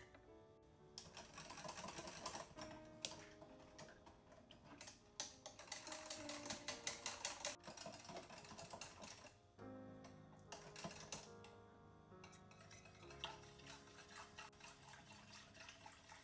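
Quick, rapid clicking and tapping of kitchen utensil work over soft background music. The clicking stops about nine and a half seconds in, leaving the music with a few scattered taps.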